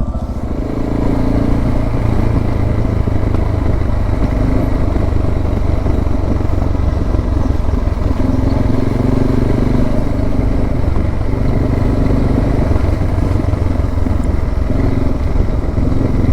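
Suzuki DR650's single-cylinder four-stroke engine pulling under way as the motorcycle rides along, picking up just after the start and then running steadily.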